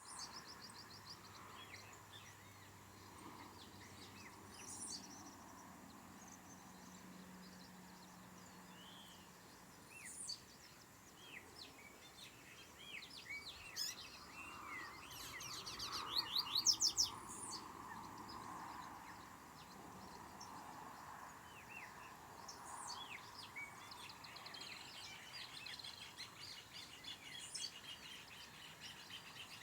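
Double-collared seedeater (coleiro) singing its carioca-type song: quick sweeping chirps and short trills in phrases, with a loud rapid burst of notes about halfway through and a fast run of repeated notes near the end, over a faint background hiss.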